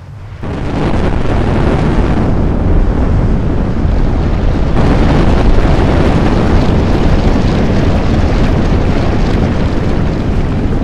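Animation sound effect of the ground erupting and rock debris bursting upward: a loud, steady, deep rumble that starts about half a second in and grows brighter and more hissing a little before the middle.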